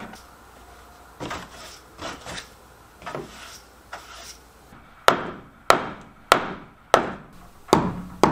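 A few soft broom strokes sweeping the floor, then a hammer striking the wooden wall framing overhead: six sharp, loud blows about 0.6 s apart in the second half.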